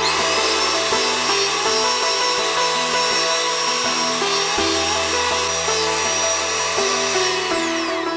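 Electric hand mixer running on low speed, its beaters whisking a whipped-cream ice cream mixture: a steady high motor whine that starts at once and winds down near the end as the mixer is switched off.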